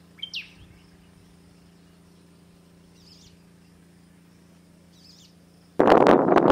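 A few short, rising bird chirps over a steady low hum, then, near the end, a sudden loud, rough rush of wind buffeting the microphone.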